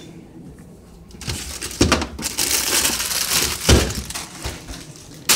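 Kitchen items being gathered from a cupboard: loud crinkling and rustling with two heavy thumps, about two and four seconds in, and a sharp click just before the end.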